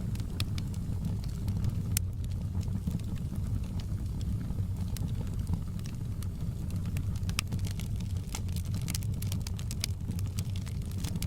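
Wood fire burning in a fireplace: a low, steady rumble of flames with scattered sharp crackles and pops, one louder pop about two seconds in and the crackles coming thicker in the second half.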